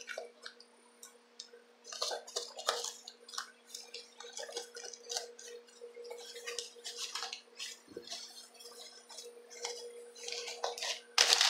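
Cardboard shipping box being torn open by hand: irregular crackling, scraping and tearing of cardboard and packing tape, then crumpled newspaper packing rustling, loudest near the end.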